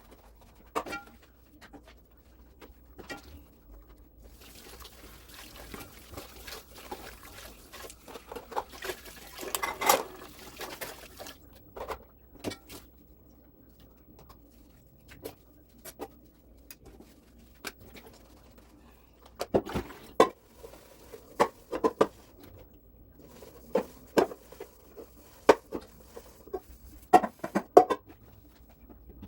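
Washing up at a sink: water runs from the tap for about seven seconds, amid scattered clinks and knocks of dishes and cutlery. Later come clusters of louder clatters.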